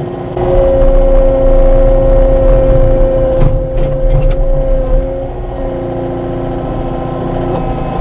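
Cat 259 skid steer's diesel engine running, working harder under load from about half a second in with a strong steady tone and deep rumble, then easing back after about five seconds. A few sharp clacks come in the middle.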